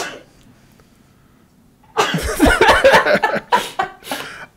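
A man coughing hard, a run of loud coughs starting about two seconds in.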